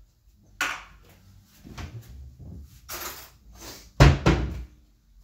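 A kitchen door being opened and shut: a sharp click of it opening, some rummaging and handling noises, then a heavy thump of it closing about four seconds in.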